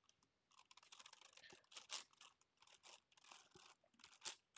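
Gigaminx puzzle's plastic layers being twisted by hand: a quick, irregular run of faint clicks and short rasping scrapes, thickest from about half a second in.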